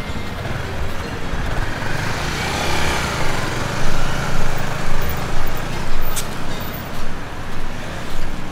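Motorcycle engine running at low speed, its level swelling and falling in uneven pulses about twice a second from around halfway in.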